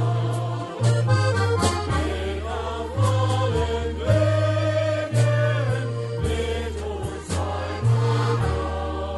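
Live polka band playing an instrumental passage, with accordion over a bass line that steps between notes and regular drum hits.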